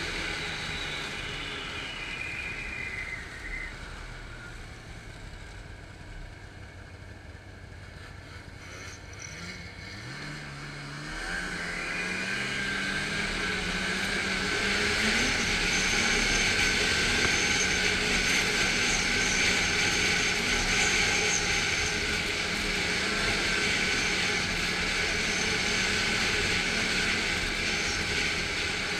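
Snowmobile engine and track on the move: the engine eases off with falling pitch in the first few seconds and runs quieter at low throttle, then accelerates with rising pitch about ten seconds in and holds a louder, steady high-speed run with a strong hiss.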